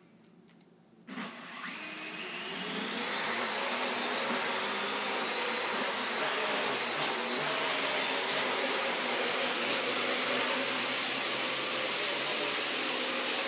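Parrot AR.Drone 2.0 quadcopter's four electric motors and propellers starting about a second in, spinning up over a couple of seconds to a steady whirring buzz as the drone takes off and flies.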